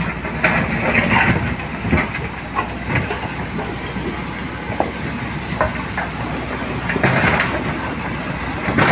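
Heavy diesel road-construction machinery running steadily, with irregular scraping and clattering. The clatter is loudest about a second in and again around seven seconds.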